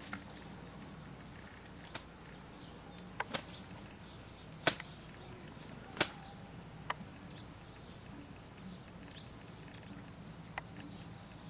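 Scattered sharp clicks and knocks, about seven in all, the loudest near the middle, over a faint steady background noise.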